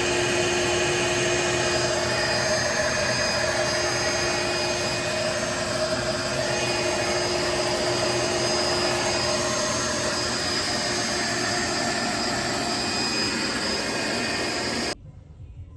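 Steady, loud whirring machine noise with a few held tones, like a motor-driven fan or blower, cut off suddenly near the end.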